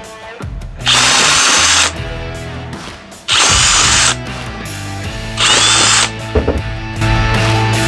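Electric drill run in three short bursts of about a second each, boring through wood, its motor whine shifting in pitch within each burst.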